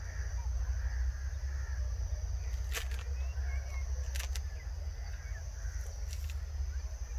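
Wind rumbling on the microphone, with birds chirping faintly and a few short sharp clicks.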